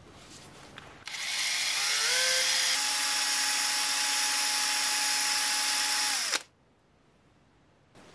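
Power drill spinning a plastic stirrer in a cup of epoxy resin to mix it. It starts about a second in, its whine rises as it comes up to speed, runs steadily for a few seconds, then stops abruptly.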